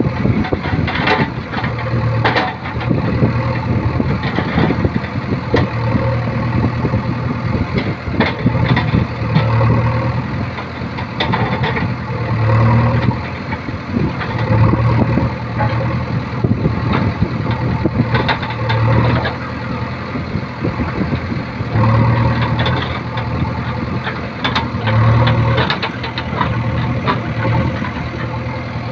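JCB backhoe loader's diesel engine running, its note swelling every few seconds as the backhoe arm digs, with scattered knocks and clanks from the bucket working the soil and stones.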